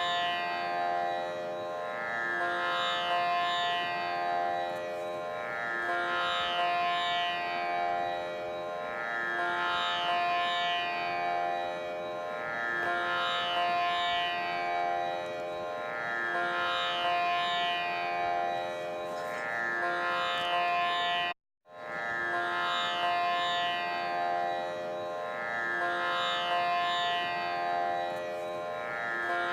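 Instrumental background music: a plucked string melody over a steady drone, a short phrase repeating about every two seconds. The music cuts out for a split second about 21 seconds in and picks up again.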